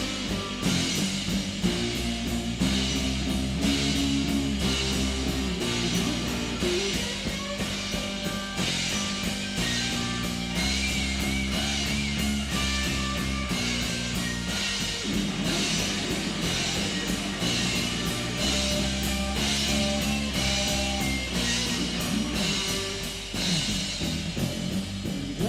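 Rock band playing an instrumental break: a wavering guitar lead over a steady drum beat and held bass notes.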